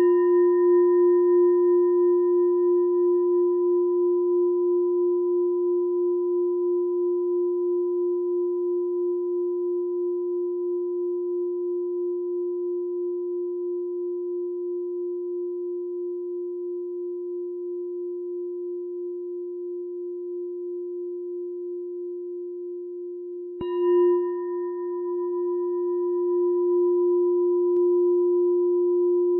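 A meditation bell ringing with one long, slowly pulsing tone and a few fainter higher overtones, fading gradually. It is struck again about twenty-four seconds in and rings on.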